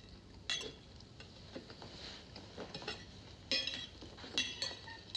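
Silverware clinking and scraping on a plate as a diner eats: a few sharp metallic clinks, one about half a second in and a cluster of three near the end.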